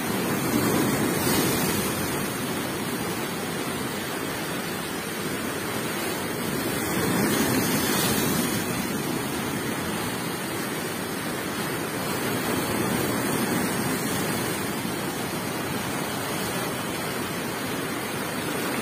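Rough sea surging and breaking in a steady rush of surf that swells and eases every several seconds.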